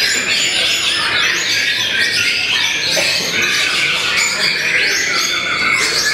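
Caged white-rumped shamas singing hard: a loud, unbroken stream of fast, varied whistled phrases, several birds overlapping at once.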